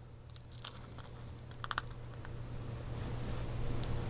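Small plastic-and-metal clicks of Tamiya sprue cutters working at a 1/64 diecast car's wheels and axles to free them: a few light sharp clicks, a pair of them close together near two seconds in, over a steady low hum.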